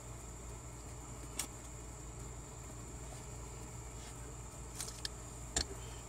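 Light clicks and taps of small parts being handled at a manual truck shifter: one click about a second and a half in and a few more near the end, over a steady low hum.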